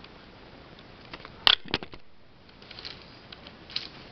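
Paper towel crinkling and rustling as it is squeezed in the hands. Two sharp knocks come about a second and a half in.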